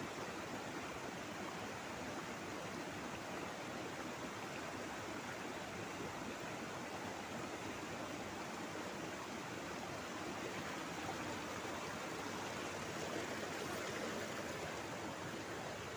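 A fast, shallow rocky river rushing over stones: a steady, even rush of water.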